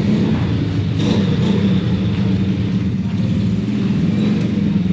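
A car engine running steadily, a low, even hum with no clear change in pitch.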